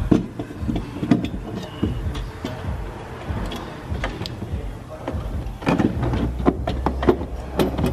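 Metal clunks, taps and scrapes as a replacement turbocharger is worked by hand up into place against the engine and heat shield of a BMW four-cylinder. A low steady hum comes in about five and a half seconds in.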